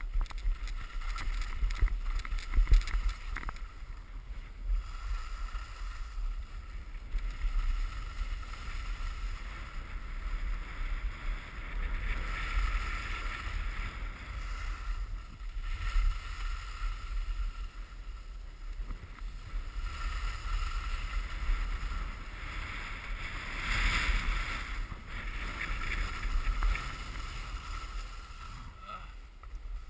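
Skis hissing and scraping over snow during a downhill run, under wind buffeting the microphone as a low, fluctuating rumble. The hiss swells and fades with the turns.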